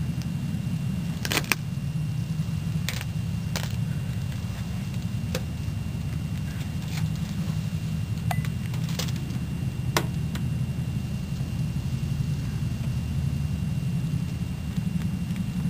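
Handheld camera handling noise: a steady low rumble with several sharp clicks at irregular intervals.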